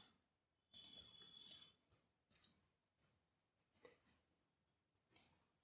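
Near silence, broken by a few faint, scattered computer mouse clicks.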